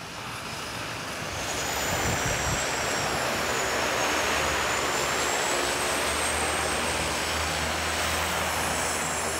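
Twin turboprop engines of a de Havilland Canada DHC-6 Twin Otter floatplane taxiing on the water. A steady engine roar carries a high turbine whine that wavers slowly in pitch, and the sound grows louder over the first two seconds.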